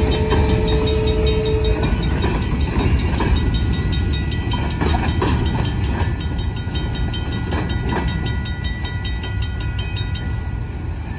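Freight train's covered hopper and tank cars rolling past, a steady low rumble with a few wheel knocks over the rail joints. A Griswold mechanical crossing bell rings steadily throughout with regular strikes and stops about ten seconds in.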